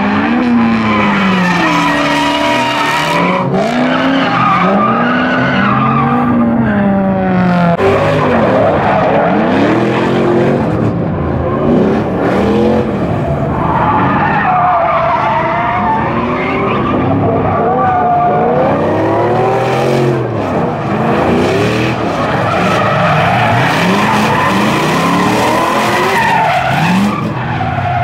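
Drift cars' engines revving up and down in repeated arcs, over the steady squeal and hiss of tyres sliding sideways. More than one car is on course, so the rising and falling engine notes overlap.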